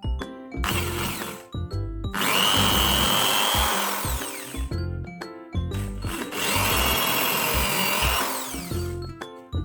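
Electric drill running in two spells of a few seconds each, a steady high whine that falls away as the motor winds down at the end of each, with a brief first burst near the start. Background music plays throughout.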